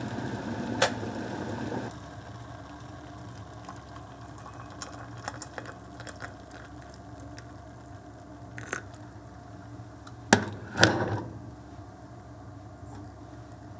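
Hot water poured from a gooseneck kettle onto a rooibos tea bag in a mug, with light clinks and ticks. A steady hum runs for the first two seconds. About ten seconds in there is a sharp knock, then a short rattle.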